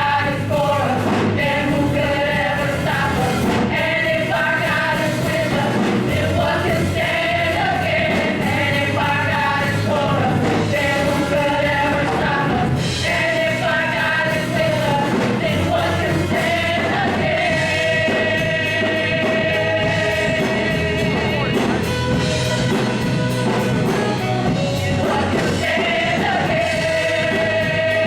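Live gospel praise music: a choir and congregation singing together over a full band with bass and drums, steady throughout.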